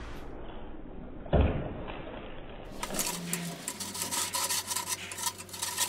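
Hot high-carbon steel cleaver blade quenched in a pan of oil to harden it: a knock about a second and a half in, then dense crackling and sizzling as the oil boils against the blade.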